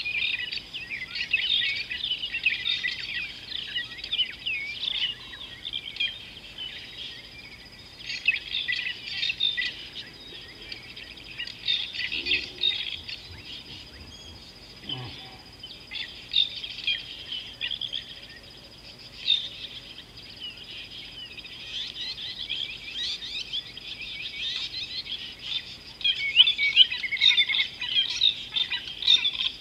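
Many wild birds chirping and trilling in a busy chorus of short, quick calls, loudest near the end, over a steady thin high-pitched tone.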